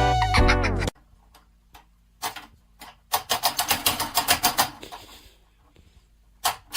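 Background music that cuts off about a second in, then two runs of rapid sharp clicking, about eight clicks a second, with a short hiss between them.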